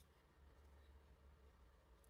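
Near silence: faint room tone with a steady low hum.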